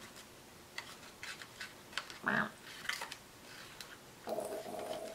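Faint small clicks and rustles of a plastic scoop scraping chocolate candy sauce out of a candy-kit tray and into a crinkly plastic squeezing bag. A brief vocal murmur and a short held hum break in near the middle and the end.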